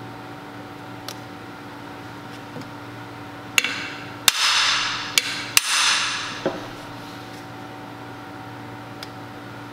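Hammer blows on a cam bearing installer bar, driving a cam bearing into the cast iron cam bore of a Ford 460 big-block: about five strikes in the middle, the two loudest each followed by a metallic ring that dies away. The bearing goes in easily because the bore is oversize, leaving a loose interference fit.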